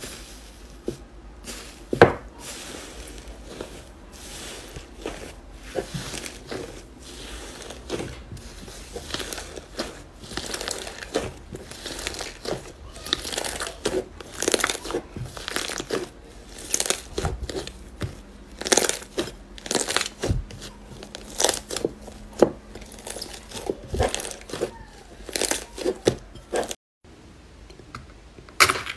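Slime being pressed and pulled by hand close to the microphone, giving a run of sharp, irregular clicks and pops that grow louder and more frequent in the second half. The sound breaks off briefly near the end.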